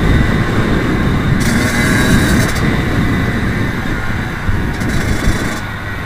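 Kawasaki KX85 two-stroke dirt bike engine running as the bike is ridden on a motocross track, mixed with heavy wind rumble on the on-board camera's microphone; it gets a little quieter toward the end.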